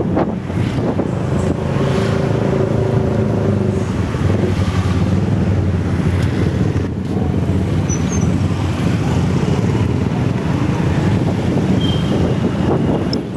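Road vehicle engine running at a steady speed while on the move, with road and wind noise.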